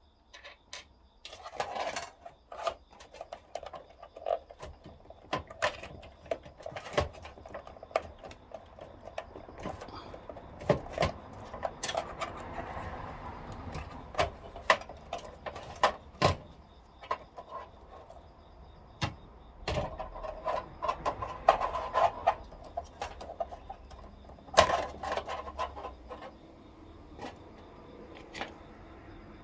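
Irregular clicks, knocks and short rattles of hands working on a computer case and its parts. The busiest clattering comes about twenty seconds in and again around twenty-five seconds.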